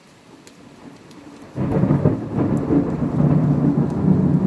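Rain falling steadily, then thunder breaking suddenly about one and a half seconds in and rumbling on loudly through the rest.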